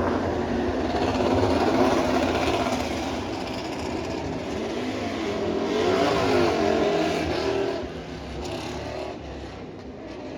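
Racing motorcycles passing on the circuit, engines at high revs with the pitch rising and falling as they go by. One pass-by is loudest about six seconds in, and the sound eases off somewhat after about eight seconds.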